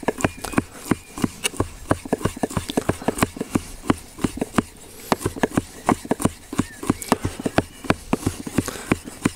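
Chef's knife chopping grilled garlic cloves on a wooden chopping board: rapid, uneven knocks of the blade on the wood, several a second.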